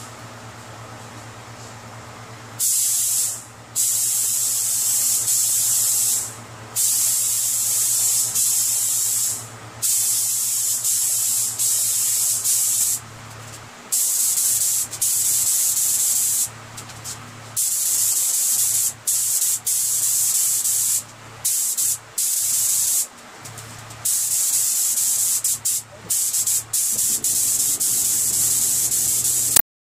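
Compressed-air paint spray gun hissing in repeated bursts as the trigger is pulled for each pass over the car's panels, with short breaks between passes. A steady low hum runs underneath.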